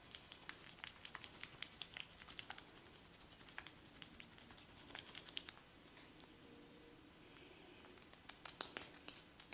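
Faint, irregular soft clicks and pats of hands working on a person's head during a massage, thinning out for a couple of seconds before picking up again near the end.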